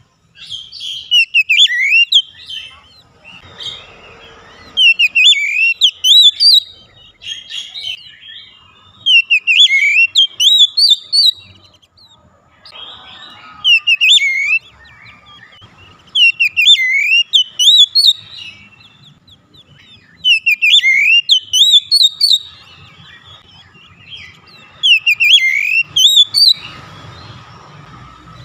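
Oriental magpie-robin (kacer) singing: loud bursts of varied, swooping whistled phrases, repeating about every four seconds.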